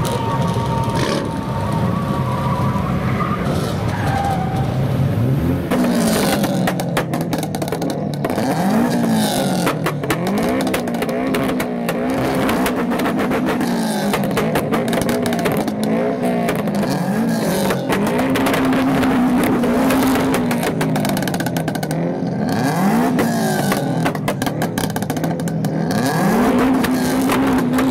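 Subaru Impreza's flat-four engine idling for about five seconds, then revved over and over, its pitch rising and falling about every two seconds, with sharp pops among the revs.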